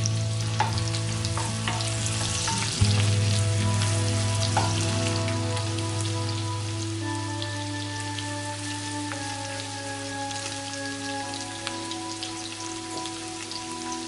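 Leek, garlic and green chili peppers sizzling in butter in a pan, with a few knocks of a wooden spatula and ingredients against the pan, the loudest about three seconds in. Soft background music with long held notes plays along.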